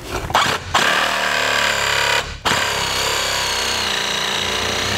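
Cordless demolition hammer chiseling out a concrete slab: two short blips, then steady rapid hammering with a brief break a little past two seconds in.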